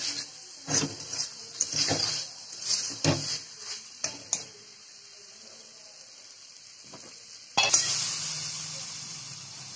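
A spatula scrapes and knocks against a kadai as potatoes and peas are stirred into the spice paste, in a run of short strokes for the first few seconds. About seven and a half seconds in, water hits the hot pan and sizzles loudly, then slowly dies down.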